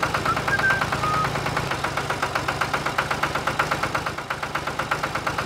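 Tractor engine idling with a steady, rapid chugging knock of about ten beats a second.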